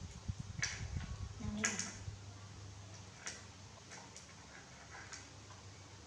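Sharp, irregular clicks and cracks of fried crab shells being picked apart and eaten by hand, about one every second, the loudest a little under two seconds in, with low knocks during the first two seconds.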